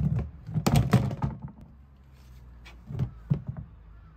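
Latches and lid of a red KTC EKP-1A plastic tool box being worked by hand: a sharp clack at the start, a cluster of clicks and plastic clatter about a second in, then two more thunks about three seconds in.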